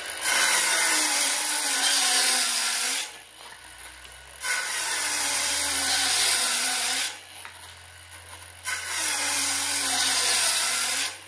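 Milwaukee M12 Fuel 5-3/8-inch brushless cordless circular saw cutting across a 2x8 in three pushes of about three seconds each, the motor's note dipping under load and recovering in each push. Between the pushes the cutting noise drops away and the saw runs on more quietly.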